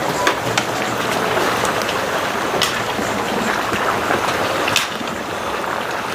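Pork frying in a large pan of lard over a wood fire: a steady crackling sizzle with scattered sharp pops.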